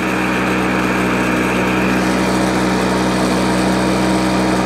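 Flymo petrol hover mower's Tecumseh two-stroke engine running steadily at speed, being given a warm-up run before the revs are brought down.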